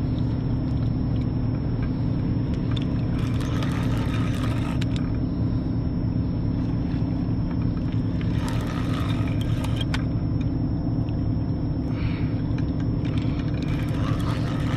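Low, steady engine drone from a large ship on the river. A spinning reel being cranked in short spells adds a whirring, clicking hiss about four seconds in, around nine seconds in, and near the end.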